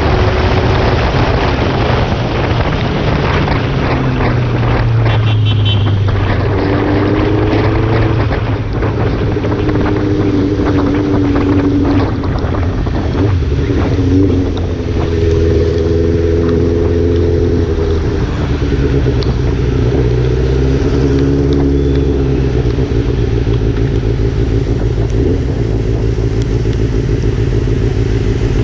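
Motorcycle engine running under way, its pitch rising and falling in steps with throttle and gear changes, over a steady rush of wind and road noise.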